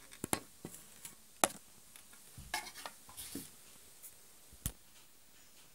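Sharp clicks and light taps, irregular and a few a second, with a brief scrape or rustle in the middle: small hard objects being handled, as when a snap-fit scale model airliner is picked up and set down.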